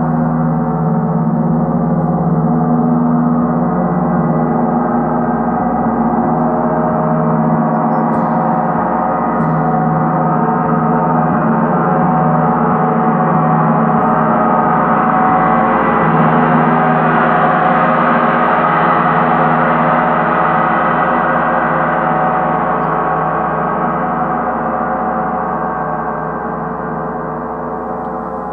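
Paiste 38-inch Sun gong, the deepest-pitched of Paiste's Planet gongs, played continuously with a large gong mallet: a deep, sustained wash of many overtones that builds to its fullest about two-thirds of the way through and then slowly begins to fade.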